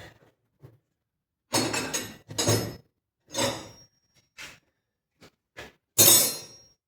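Metal tools clinking and clattering on a workbench: a cluster of loud clanks, then lighter ticks, with the loudest clank about six seconds in.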